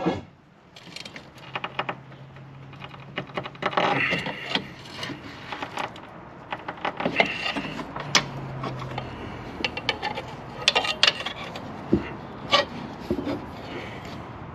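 Irregular metal clicks and clinks of a socket and breaker bar being fitted and worked on a transmission-mount bolt to break it loose, with a low steady hum for a few seconds twice.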